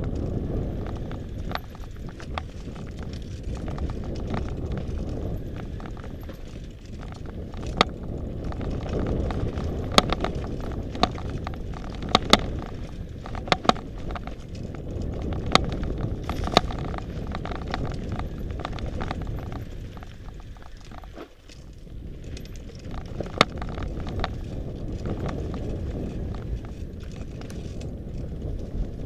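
Mountain bike ridden over a rocky dirt singletrack: a steady low rumble of the ride, with sharp clacks and rattles as the bike hits rocks and roots, several coming close together about halfway through.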